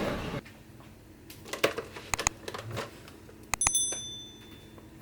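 A few light clicks and knocks, then a sharp metallic strike about three and a half seconds in that rings out briefly with a clear, bell-like high tone before fading.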